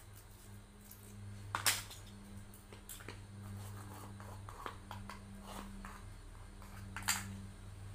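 Scissors snipping and hands creasing thin embossed metallic foil on cardboard: scattered crisp clicks and crinkles, with two sharper ones about a second and a half in and near the end, over a steady low hum.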